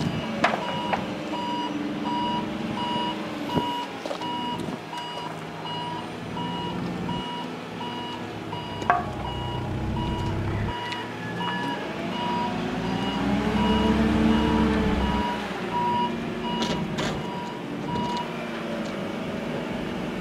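Forklift backing up with a load on its forks: its reverse alarm beeps steadily over the running engine, and the beeping stops near the end. About two-thirds of the way in the engine revs up and falls back, and there are two sharp clanks earlier on.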